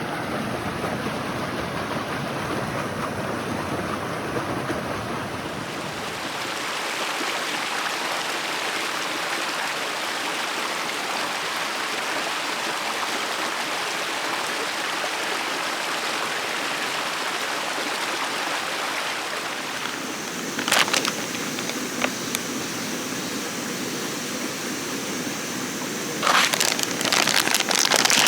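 Steady rushing of flowing water from a stream. A thin steady high tone joins about two-thirds of the way in, followed by a few sharp clicks, and dense crackling starts near the end.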